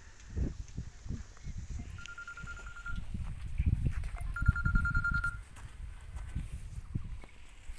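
Wind buffeting the microphone in uneven gusts, loudest around the middle, with a rapid high-pitched trill heard twice, about a second each.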